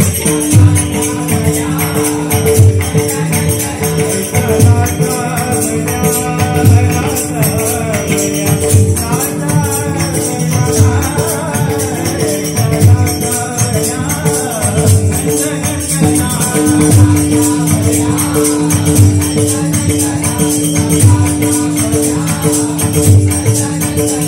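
Marathi devotional bhajan (gaulan) in performance: male singing over steady held harmonium notes, with a barrel drum beating about once a second and jingling hand cymbals keeping time.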